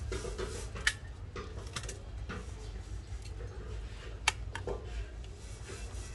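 Pot of fish soup simmering, with small bubbling ticks over a steady low hum. A metal ladle clinks against the pot twice, about one second and four seconds in.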